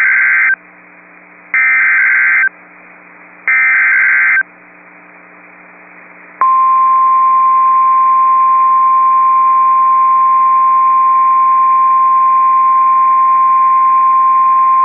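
NOAA Weather Radio Emergency Alert System tones: three identical one-second bursts of screeching SAME header data about two seconds apart, then after a short pause of radio static the steady single-pitch 1050 Hz weather radio alert tone starts about six seconds in and holds. A faint low hum and static sit under it all, signalling a severe thunderstorm warning.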